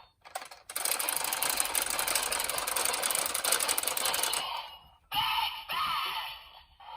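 DX Zenkai Buckle toy belt: a fast run of mechanical clicking for about four seconds, then a brief gap and the toy's speaker starting its electronic sound effects and voice.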